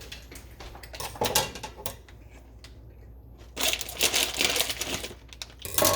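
A snack bag of popcorn being handled and opened, crinkling and crackling in bursts, with a few sharp clicks about a second in and the loudest rustling from about halfway through.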